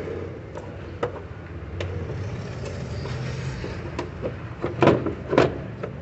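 A flat-bladed tool scraping and prying old sealant off the back of a generator's push-button switch in its panel: scattered sharp clicks, then a few louder scrapes about five seconds in, over a low steady hum.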